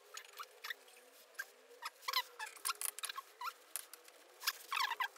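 Irregular short squeaks and light clicks from the painted metal parts of a vintage power hacksaw as they are handled and fitted together by hand, busier in the second half.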